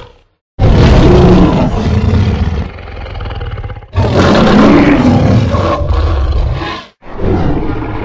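Custom Tyrannosaurus rex roar sound effect, made by layering film dinosaur roars with real animal roars such as lion, tiger and elephant. Three long, deep roars in a row: the first starts about half a second in, the next about four seconds in, and a third near the end.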